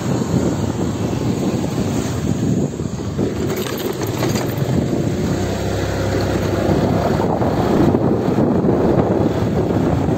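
Wind rushing over the microphone of a moving motorcycle, with the motorcycle's engine running underneath as a steady low rumble.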